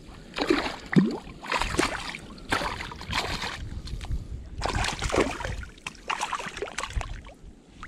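Water splashing and sloshing in a run of irregular bursts as a landing net holding a small speckled trout is moved about in shallow water.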